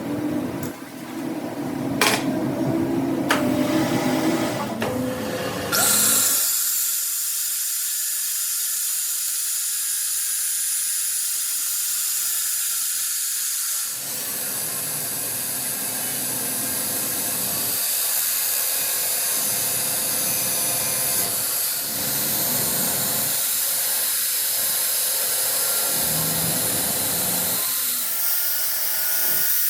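A few knocks and metal clatter, then about six seconds in a power tool starts and runs steadily with a high-pitched whir.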